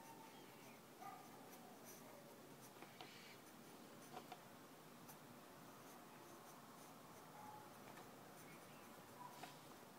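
Faint scratching of a pencil drawing on sketchbook paper, with a few light ticks.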